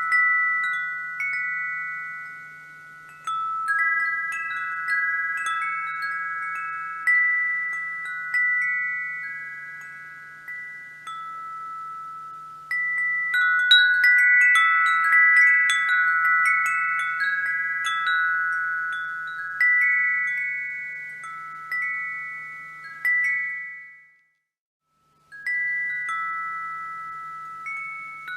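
Wind chimes ringing: metal tones struck one after another and overlapping, each ringing on and fading away, with a busier flurry of strikes about halfway through. Near the end the sound cuts out completely for about a second, then the chimes start again.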